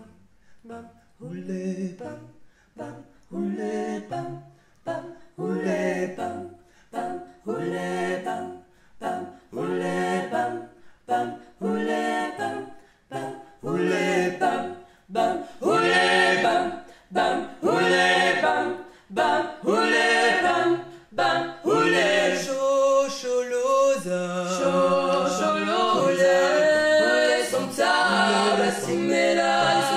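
Unaccompanied choir singing: short chanted phrases about once a second at first, swelling into continuous full harmony about two-thirds of the way through.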